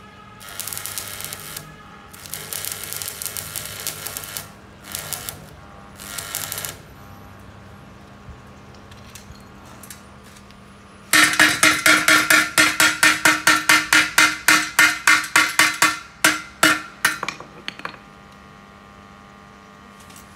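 Stick-welding arc from a 140-amp Ozito welder crackling and hissing in a few short runs over the first seven seconds. About halfway through, a hammer strikes the steel bar about four times a second for some six seconds, each blow ringing, chipping the slag off the fresh weld bead.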